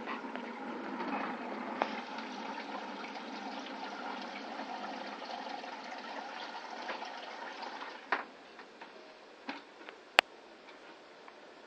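Water rushing and splashing inside a homemade plastic-bucket room cooler. It stops about eight seconds in, and a few sharp plastic clicks and knocks follow, the loudest near the end.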